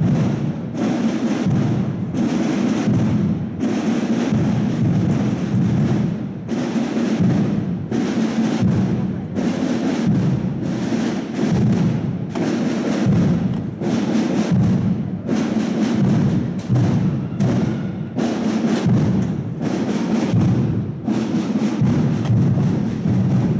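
Holy Week procession drums beating a steady, repeating march rhythm, the deep drum strokes loudest.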